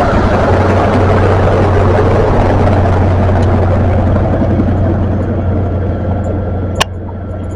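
Diesel train engine running with a steady low drone and rumble, easing slightly after about five seconds. A single sharp click near the end.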